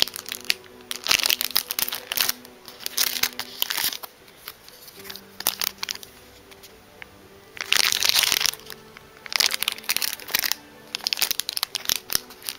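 Clear plastic packaging bag crinkling in repeated bursts while a silicone resin mold inside it is handled, the longest burst about eight seconds in. Faint background music with held notes plays underneath.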